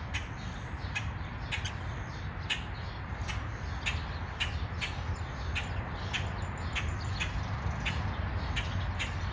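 An animal outdoors giving short, sharp calls over and over, about two a second, over a steady low rumble.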